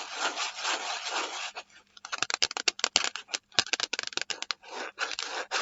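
Fingernails scratching the textured surface of an eyeshadow palette: a continuous rubbing scratch for about two seconds, then quick separate scratches at about five a second.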